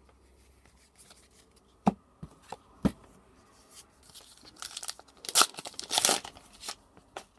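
Foil wrapper of a Flesh and Blood Uprising booster pack being torn open and crinkled, loudest about five and a half to six seconds in. It is preceded by a few sharp clicks about two to three seconds in.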